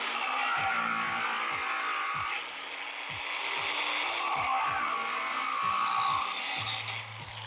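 A power tool running against wood, a dense whirring noise that drops in level about two and a half seconds in, over background music with a steady beat.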